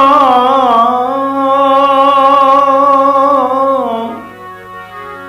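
Devotional bhajan singing: a man holds one long sung note that wavers in pitch over a steady drone. About four seconds in the voice drops out, leaving a quieter instrumental phrase of short notes over the drone.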